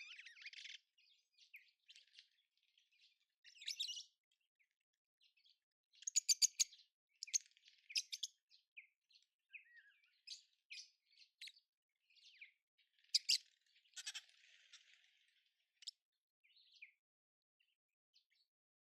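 Wild birds chirping and calling in short, separate high-pitched notes, with a quick loud run of notes about six seconds in.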